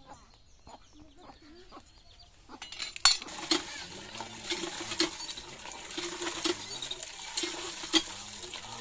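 Cast-iron hand pump being worked: its handle clanks about twice a second while water gushes from the spout into a metal pot. It starts about three seconds in, after a quieter stretch.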